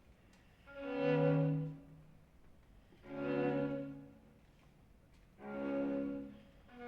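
String quartet (two violins, viola and cello) playing slow sustained chords that swell in and fade away three times, with a new chord beginning near the end.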